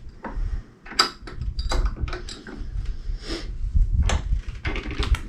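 Irregular knocks and clicks of workshop hardware being handled, as an antique glass doorknob is set up and clamped in a bench vise for re-tapping. The loudest knock comes about a second in, with more around the middle and near the end, over a low rumble.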